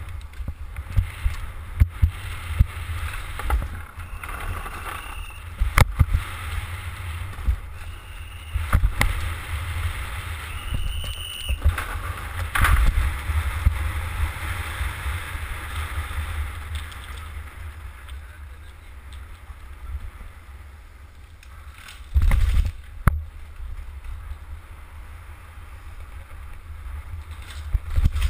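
Handlebar-mounted camera on a downhill mountain bike descending at speed: steady wind buffeting and low rumble from the tyres on asphalt and paving, broken by sharp knocks and rattles as the bike hits bumps. Short high squeals come twice, around five and eleven seconds in.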